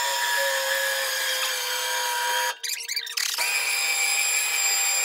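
Electric drive motor of a vertical platform lift running with a steady whine as the platform moves, stopping for under a second about two and a half seconds in, then starting again.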